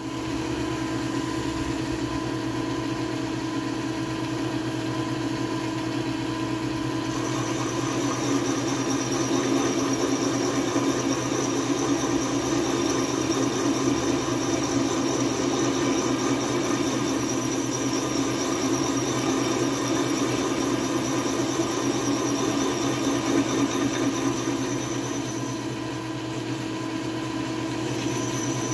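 Vertical milling machine running steadily with an end mill cutting into the side of a hole in a metal plate, enlarging the hole. A high whine joins about seven seconds in, drops out a few seconds before the end and comes back.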